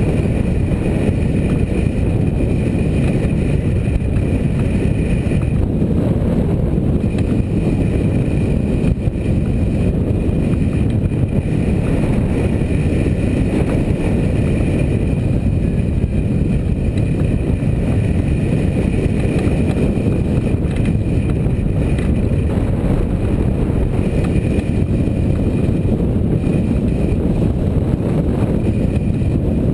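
Strong wind blowing across the camera microphone: a loud, steady low rumble with no breaks.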